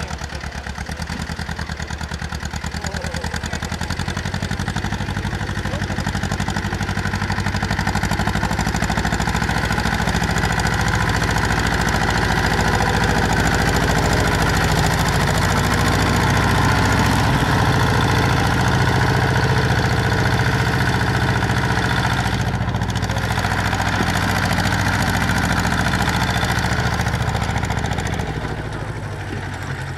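Vintage tractor engine running at low speed with an even beat, growing louder over the first few seconds as the tractor comes close, then fading near the end.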